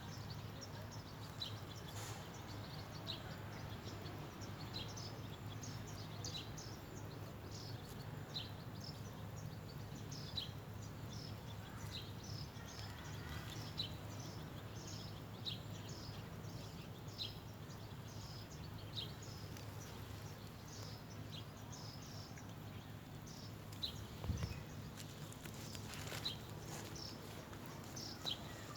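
Small birds chirping: short high chirps repeating every one to two seconds, over a steady low hum. A brief low thump comes near the end.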